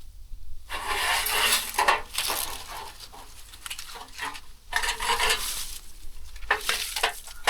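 Small chick feeders being pulled out and handled, clattering and scraping in several spells.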